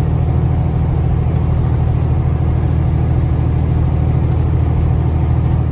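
Steady low engine and road drone heard inside a semi-truck's cab while driving.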